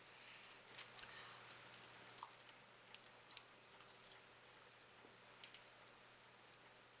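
Faint, scattered crackles and clicks from a foil-wrapped chocolate snack being handled and bitten into.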